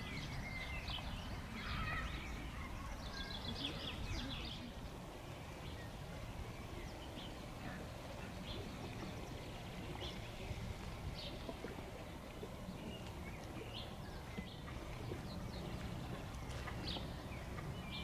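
Outdoor lakeside ambience: a low, steady rumble with birds chirping briefly here and there.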